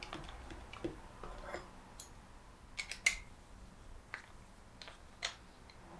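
Scattered light clicks and small metal taps from a socket and Allen key working the lance-connector housing of a Kranzle M2000 pressure-washer trigger gun as it is screwed back up.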